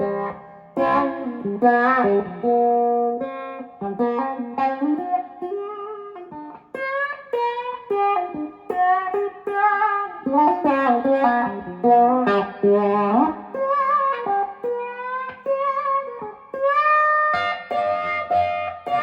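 Electric guitar played through a Dunlop Cry Baby 535Q wah pedal: a run of picked single notes with bends and slides. The pedal is passing sound again now that a burned power-supply resistor has been replaced.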